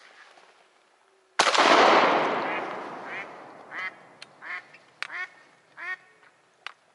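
A single shotgun shot about a second and a half in, its sound dying away over about two seconds. After it, a hen duck, the tethered decoy, quacks in short series several times.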